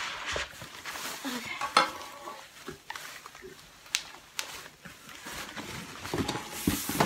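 Cardboard box and its packaging being handled while it is unpacked: irregular rustling and scraping of the flaps, with a few sharp knocks and clicks.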